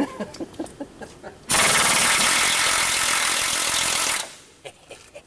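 Air impact wrench hammering on a stuck bolt in one burst of about three seconds, starting about one and a half seconds in and cutting off suddenly.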